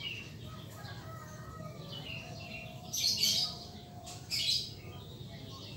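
Small birds chirping in short bursts, with the two loudest bursts a little past the middle.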